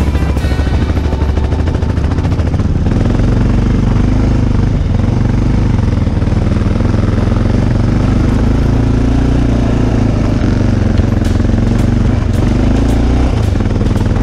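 The single-cylinder engine of a 1992 Aprilia Pegaso 650 running on the move, its pitch wavering up and down with the throttle.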